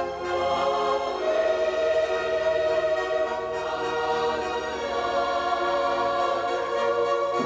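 Girls' choir singing a Christmas hymn with a symphony orchestra, in long held notes that change about a second in and again near five seconds.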